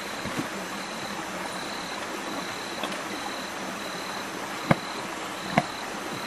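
Steady rushing background noise of a rainforest stream, with a thin high insect note pulsing about twice a second. Two sharp clicks stand out near the end.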